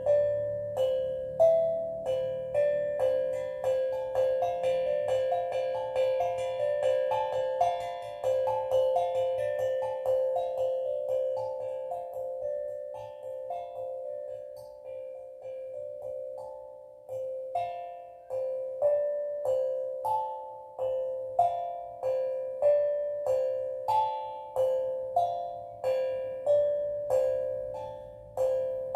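Steel drum played slowly: single struck metal notes ringing and fading one after another, thinning out and softening about halfway through before picking up again at an even pace.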